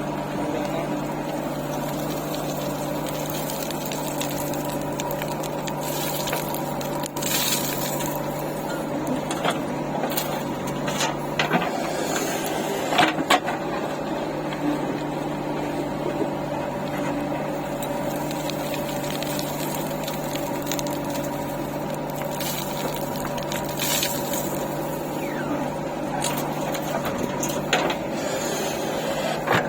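Diesel engine running steadily at a constant speed, with a few sharp knocks now and then.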